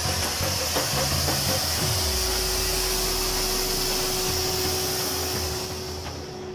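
Ground fountain firework (flower pot) spraying sparks with a steady hiss that fades away near the end.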